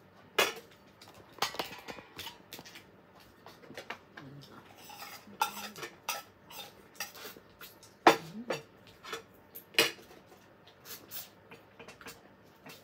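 Metal spoon and fork clinking and scraping on ceramic plates during a meal: a string of sharp clinks, the loudest about half a second in, at about eight seconds and near ten seconds.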